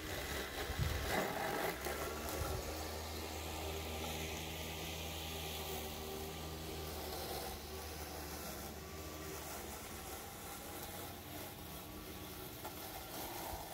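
Small electric motors of a remote-controlled lawn mower running with a steady hum as it drives over grass, its 775 drill motor spinning 3D-printed blades; the hum fades in the last few seconds. Wind gusts buffet the microphone at the start and near the end.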